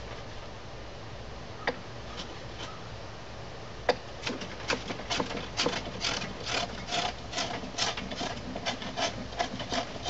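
Short, quick strokes of a hand tool rubbing across the end grain of a glued-up wooden workbench top, smoothing it, about three strokes a second. They start about four seconds in, after a couple of single knocks.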